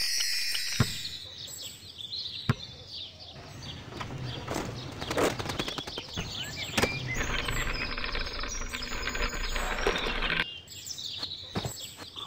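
Birds chirping in short quick calls over a steady outdoor-ambience hiss, with a few sharp clicks.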